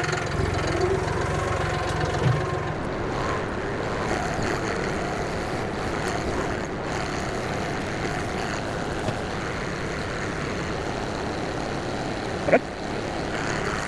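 Tractor engine running steadily while it is maneuvered, with a single sharp knock about twelve and a half seconds in.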